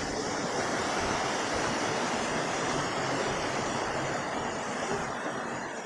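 A waterfall rushing: a steady, dense roar of falling water that holds constant and stops abruptly near the end.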